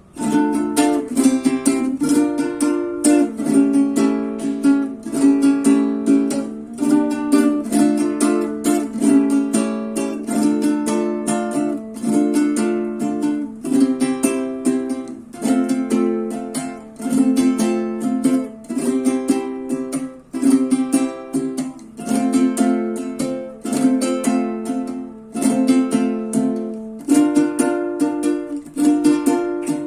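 Venezuelan cuatro strummed in a steady, fast rhythmic pattern, chords changing about every second, as a sound test of a newly completed instrument.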